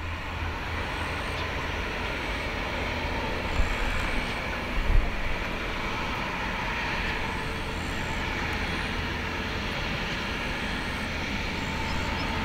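Airbus A350-900 taxiing: steady aircraft noise over a low rumble, with two short low thumps about three and a half and five seconds in.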